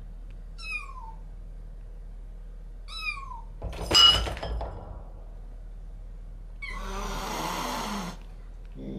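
A kitten gives two high, falling mews, about two seconds apart. About four seconds in comes a loud, sudden burst, the loudest sound. Near the end an adult cat hisses for over a second in threat.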